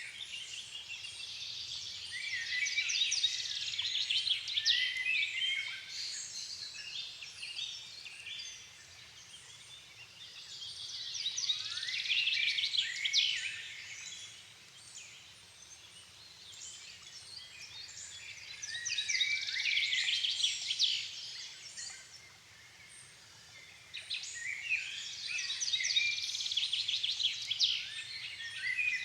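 Songbirds of a forest dusk chorus: bouts of fast, high twittering song, each a few seconds long, recur about every eight seconds, about four times, over a faint low background.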